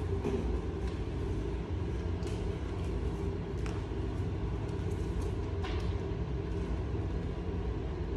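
Steady low background rumble, with a few faint short clicks about two, four and six seconds in.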